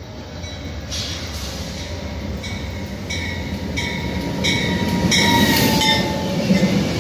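Amtrak's southbound Crescent passenger train approaching and beginning to pass, its rumble growing steadily louder. From about two and a half seconds in, a bell rings at an even beat, roughly three strikes every two seconds.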